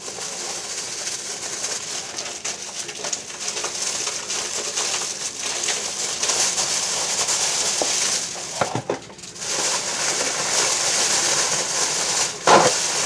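A clear plastic oven bag crinkling and rustling as a spice mix is poured over the seafood inside and the bag is handled, a steady crackle with a short break about nine seconds in.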